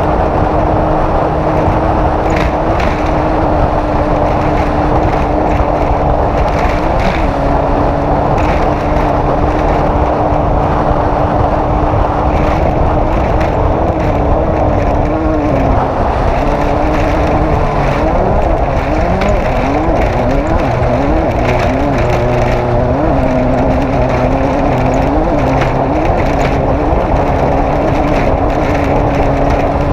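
Off-road race vehicle's engine running hard without a break. Its pitch holds fairly steady at first, then from about halfway rises and falls again and again with the throttle. Short knocks come through at intervals.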